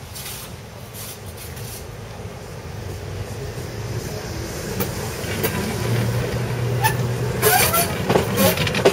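Tram approaching over track switches and passing close by. Its running rumble grows steadily louder, a low motor hum comes in about six seconds in, and near the end the wheels clack and give short squeaks over the points.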